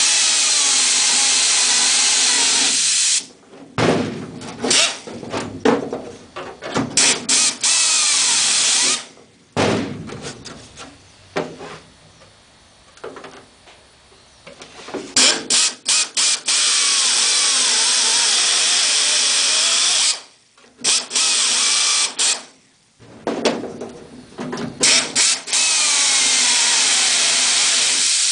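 Hand-held pneumatic drill boring rivet holes through aluminium wing skin and a nut plate strip. It comes in several long steady runs of hiss and whine, with short on-off bursts of the trigger between them.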